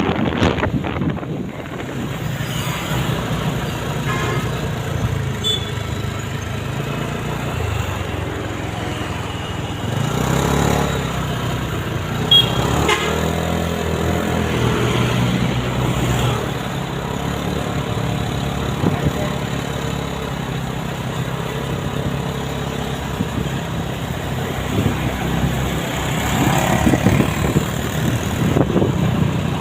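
Roadside traffic: engines of passing buses and other vehicles running, with a few brief horn toots.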